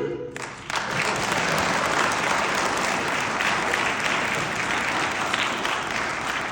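An audience applauding at the end of a choir's song, starting about half a second in, holding steady and beginning to die away near the end.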